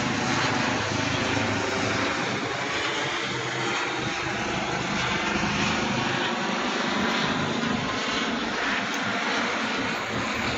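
Steady city-street noise, with a city bus running past close by near the end.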